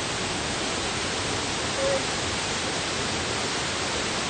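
Waterfall running fast after recent heavy rain: a steady, even rush of water pouring over rock into a pool. A single short note sounds briefly about two seconds in.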